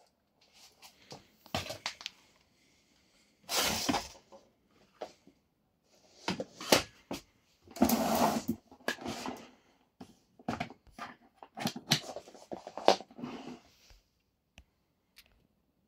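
Plastic parts of a Philips Universe FC9004 bagged vacuum cleaner being handled with the motor off: scattered clicks and knocks, with a few longer scraping rubs around the middle.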